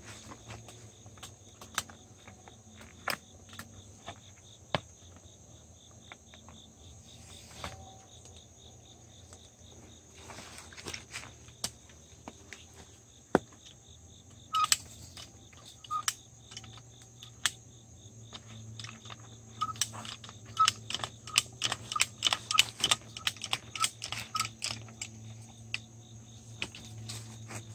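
Insects drone steadily with a high, even tone. Over them come scattered sharp metal clicks and clinks as fence tools, chain and wire are handled, with a dense run of clicks in the second half.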